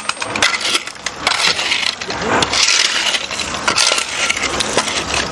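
Breaking up concrete and brick: a fast, irregular run of sharp knocks, clinks and clatter of broken pieces.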